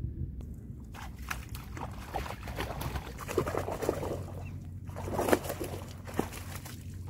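Shallow water splashing and sloshing as a mesh bag is dipped and worked at the water's edge, in irregular splashes from about a second in, with the loudest ones near the middle and again a little later.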